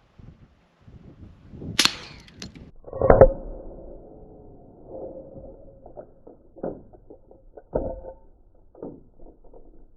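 A subdued suppressed shot from a 300 Blackout pistol, heard as a sharp crack, followed about three seconds in by the loudest sound: a bullet striking a steel target plate, which rings. Lighter clanks with the same ring follow several times as the steel settles.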